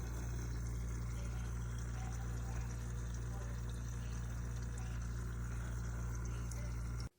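Tabletop water fountain running: a steady trickle of water falling over its bowls with the low hum of its small pump underneath. It cuts off suddenly near the end.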